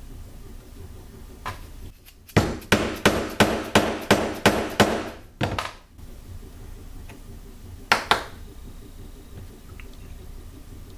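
A quick run of about eight sharp knocks, roughly three a second, then a few more spaced knocks: mallet blows on a wooden dowel rammer, packing clay into a PVC rocket engine tube.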